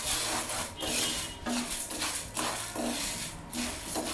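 Wooden spatula stirring dry urad dal in a nonstick frying pan: the grains rattle and scrape across the pan in repeated sweeping strokes as the lentils are dry-roasted to brown.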